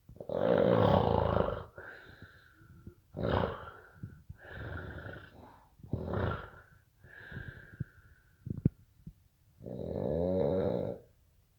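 Loud, irregular snoring: about seven snores of differing length and strength, some carrying a high whistling note, with a sharp click shortly before the last, longest snore.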